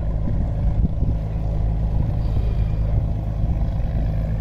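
A steady, low engine drone that runs unbroken, with no change in pitch.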